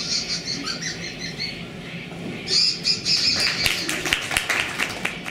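Parrot-style squawks and chirps in quick high-pitched pulses, two runs of them, followed by a quick run of sharp clicks or claps.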